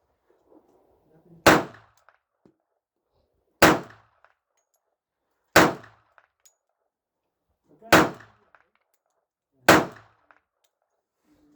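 Five pistol shots from a Glock 41 in .45 ACP, fired one at a time in slow, aimed fire about two seconds apart.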